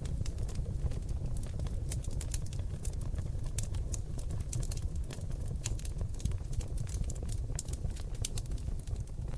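Seasoned oak logs burning in a fireplace: a steady low rumble of flame with dense, irregular crackles and sharp pops throughout.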